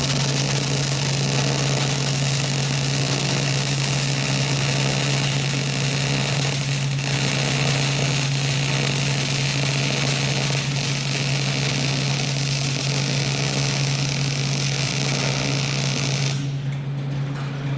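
Electric arc welding: a continuous crackling, sizzling arc as a weld bead is run, with a brief break about seven seconds in. The arc stops near the end, while the welding machine's steady electrical hum continues underneath throughout.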